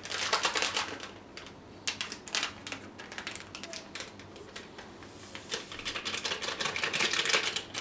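A packet of instant yeast crinkling and rustling in the hands in short bursts, then being emptied into a stainless steel mixer bowl, a dense run of small clicks and hiss over the last few seconds.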